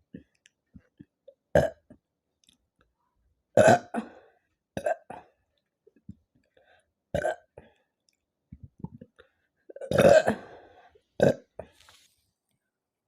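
A woman burping after drinking carbonated Pepsi: about six loud burps a second or two apart, the longest and loudest about ten seconds in.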